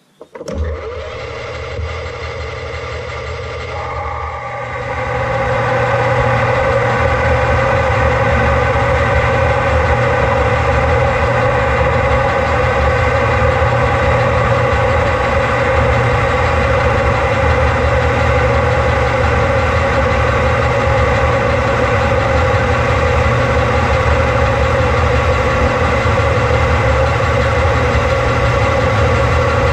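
Small metal lathe starting up and running steadily while turning a metal shaft, taking a cut. A steady mechanical hum that steps up louder about five seconds in, then holds.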